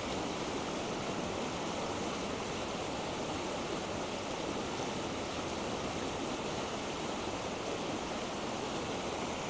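Steady, even rush of a waterfall and the river flowing below it.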